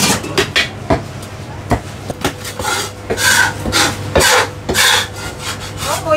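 Chinese cleaver on a thick wooden chopping block: several sharp chops in the first two seconds, then a run of rasping scraping strokes of the blade across the wood.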